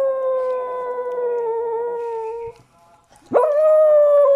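A dog howling for a tamal. One long howl slowly falls in pitch and dies away about halfway through. After a short pause a second howl starts with a quick rise in pitch and is held.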